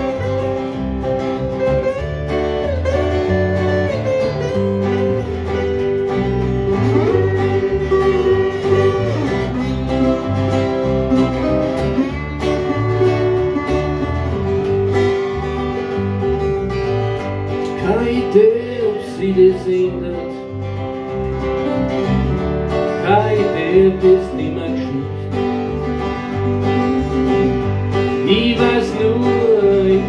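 Live acoustic band playing an instrumental break on resonator guitar, steel-string acoustic guitar and electric bass. A lead line of bending notes rides over the strummed chords and a walking bass.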